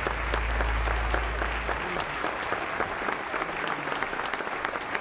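A large audience giving a standing ovation: dense, sustained clapping. A low held note sounds underneath and cuts off about two seconds in.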